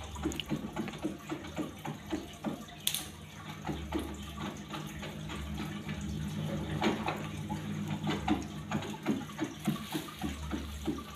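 Aquarium water circulating: running, splashing water with frequent small bubbling pops over a steady low hum, typical of a filter return stirring the tank surface.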